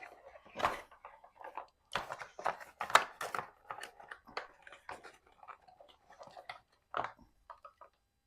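Packaging being handled and pulled apart: irregular crinkling and scratchy rustling, with the loudest crunch about three seconds in, as a snugly packed item is worked out of its box.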